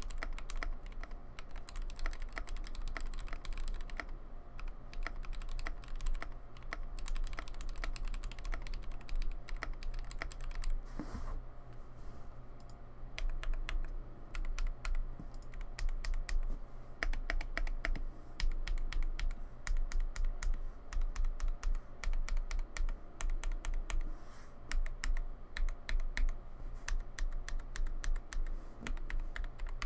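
Mechanical keyboard typing on lubed NovelKey Cream linear switches in a KBD67mkii with a brass plate and PBT Cherry-profile keycaps: a fast, continuous run of keystrokes that thins out briefly about a third of the way in. A steady low hum and hiss sit underneath.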